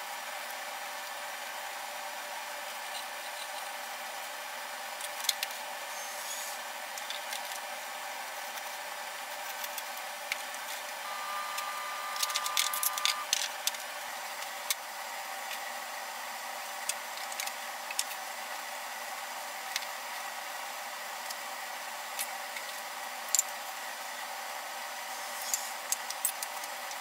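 A steady airy hiss runs throughout, with scattered light clicks and taps from hand work on the bench, a cluster of them about twelve seconds in, and a brief steady tone at the same time.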